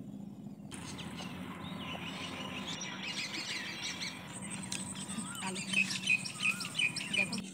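Birds chirping and calling outdoors, many short calls that grow busier and louder from about halfway through.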